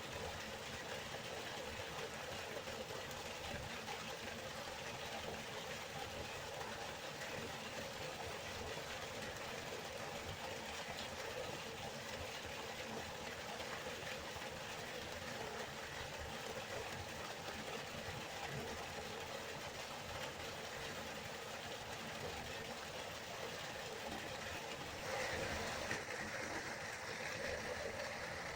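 River water flowing in a steady rush, growing a little louder and brighter about three seconds before the end.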